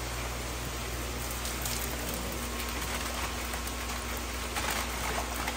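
Water splashing and running steadily in fish holding tanks, over a low steady hum from the pumps, with a few sharper splashes in the middle and near the end.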